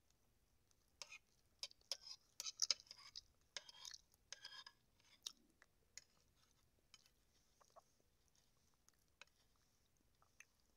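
Close-up eating sounds: a person chewing, with wet mouth clicks and smacks. They come thickly for a few seconds about a second in, then thin out to scattered faint clicks.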